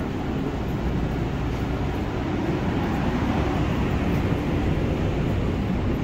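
Steady low noise inside a light rail car standing at a platform with its doors open, without any distinct knocks or voices.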